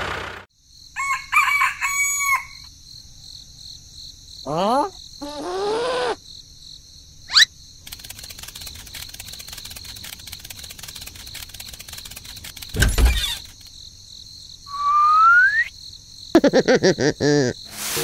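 Cartoon-style sound effects laid over the picture: a rooster crowing near the start, then sliding whistles that fall and rise, a quick upward swoosh, a thud past the middle, and a rising whistle near the end, over a steady high background tone.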